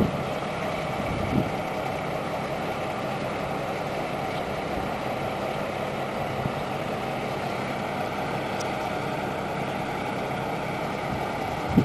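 Steady drone of a demolition excavator's engine running at work, with a faint knock about a second and a half in.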